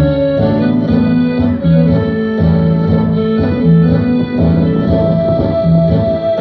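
Live duet of a piano accordion and a Yamaha PSR-S770 arranger keyboard playing a tune together, over a steady, repeating bass line.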